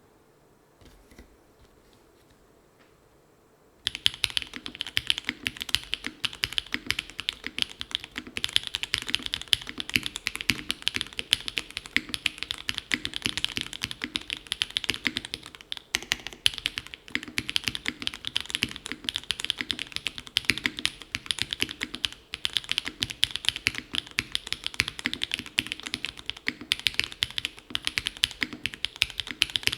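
Fast, continuous typing on a Haven 103 gasket-mounted mechanical keyboard with Gateron x SW Modern Gray linear switches, an aluminium full plate, case and plate foam, and GMK Rudy keycaps. The typing starts about four seconds in, after a near-silent moment.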